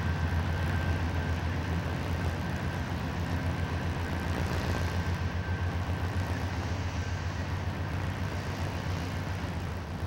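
CSX freight train's boxcars rolling across a steel girder bridge: a steady low rumble with a quick pulsing of wheels over the rails and a faint thin high whine, easing off a little near the end.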